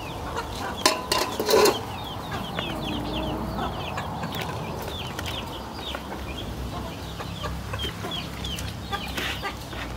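Chicks peeping nonstop in many short, falling chirps. A couple of sharp knocks come about a second in.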